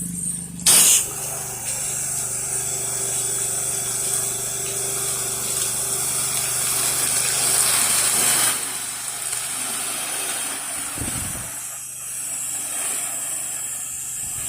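Gas-engine pressure washer (Kohler Command Pro engine) running steadily with water spraying from the wand. A short loud burst comes about a second in, and the spray hiss drops away at about eight and a half seconds, leaving the engine running.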